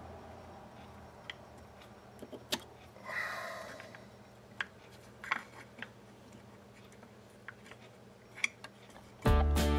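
Scattered light clicks and taps as a metal combination square is handled and set against a small project box, with a short scrape about three seconds in. Music starts just before the end.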